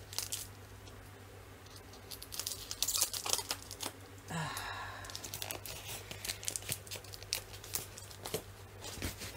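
Cardboard mailing package being torn open by hand, with irregular crackling, ripping of packing tape and paper, and crinkling plastic wrap around the contents. A steady low hum sits underneath.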